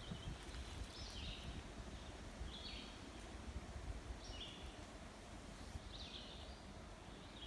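A bird calling over and over, a short high call that steps down in pitch, about once every one and a half seconds, over a faint low rumble.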